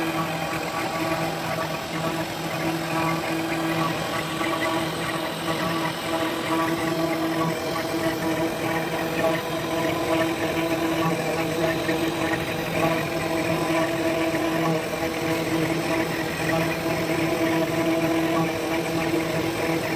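Small desktop CNC router's spindle motor running at a steady pitch, with a steady hum and whine, while a fine engraving bit carves a 3D relief into a wooden board.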